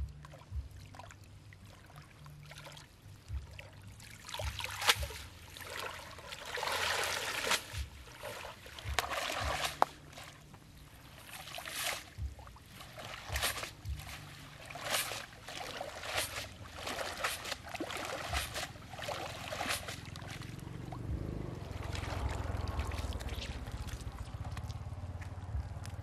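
Water splashing and sloshing in irregular bursts as a nylon cast net is swished and dunked in shallow muddy water to rinse it.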